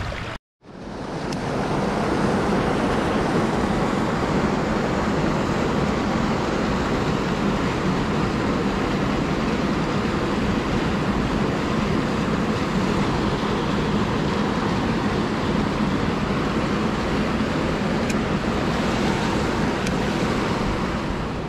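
Steady rushing of creek water running over rocks. It cuts out briefly about half a second in, then swells back within a second and holds even.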